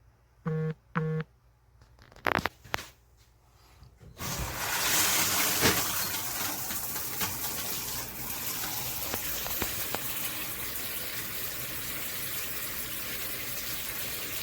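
Two short electronic beeps and a couple of sharp clicks, then water spraying steadily from a handheld shower head from about four seconds in. The spray keeps going unchanged while its switch is worked: the switch does not change it.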